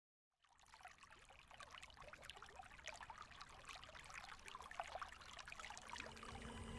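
Faint trickling water, fading in slowly from silence. A low steady hum with high whining tones joins near the end.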